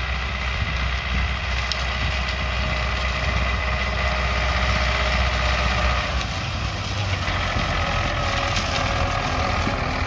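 Farm tractor engine running steadily under load as it pulls a stubble chopper through dry sunflower stalks, with the chopper's whirr and faint steady tones over it. A deep low rumble eases off about six seconds in.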